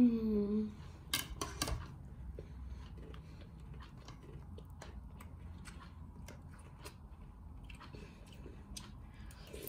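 A child chewing crunchy breakfast cereal with milk, a run of small faint crunches. Near the start there is a short falling hum from him, then two sharp clinks of a metal spoon against a plastic cereal bowl.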